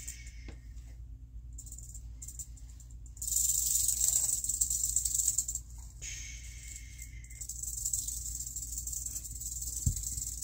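Rattlesnake rattling its tail, a dry high-pitched buzz that comes and goes and is loudest from about three to six seconds in, the snake's defensive warning as it is lifted with tongs. A short low knock near the end.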